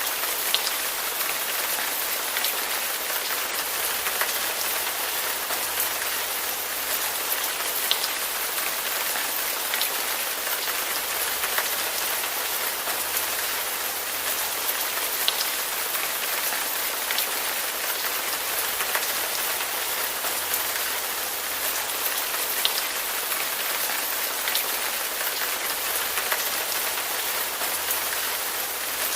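Steady rain falling, a dense even hiss with scattered individual drops ticking sharply through it.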